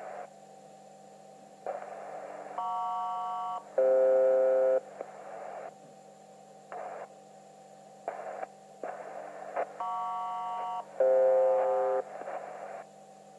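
SELCAL selective-calling tones received on HF shortwave radio: a one-second higher tone pair followed straight away by a lower one, the ground station's call to alert an aircraft's crew. The whole call comes twice, about seven seconds apart, between short bursts of radio static over a steady hum.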